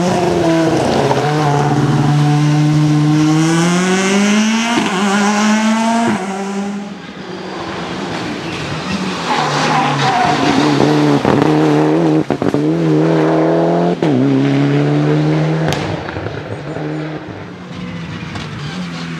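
Rally cars at full throttle. A Škoda Fabia S2000's four-cylinder engine revs up in rising pulls, broken by two quick upshifts, as the car accelerates away. Then a Mitsubishi Lancer Evolution VII's turbocharged four-cylinder accelerates out of a hairpin with several sharp gear changes.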